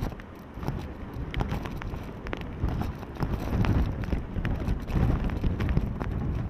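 Typhoon wind buffeting the microphone in strong gusts, with scattered sharp ticks of wind-driven rain.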